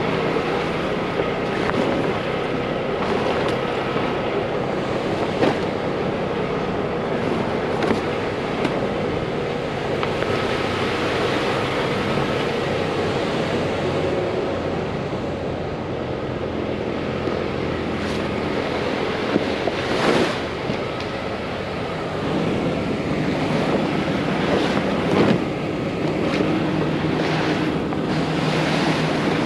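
Heavy vinyl lumber tarp rustling and scraping as it is pulled and dragged across asphalt, over a steady mechanical hum, with a few sharp knocks.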